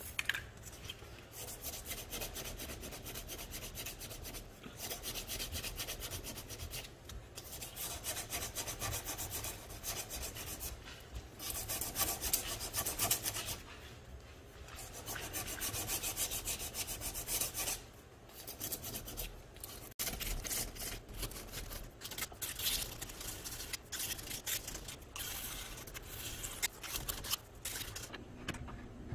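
Ebony knife handle being hand-sanded with a flat abrasive stick: rapid back-and-forth scratchy rubbing strokes in runs of a few seconds, broken by short pauses.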